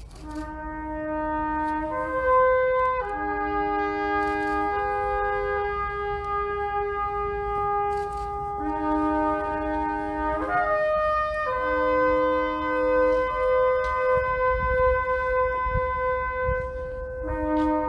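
Slow, solemn tune of long held notes on a wind instrument, the mourning music played during a bowed moment of silent tribute.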